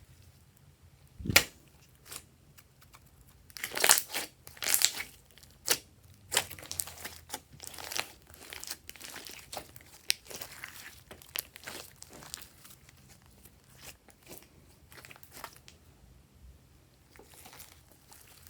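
Slime being worked by hand, crackling and popping. A single sharp thump comes about a second in, then a dense run of crackles that thins out over the second half.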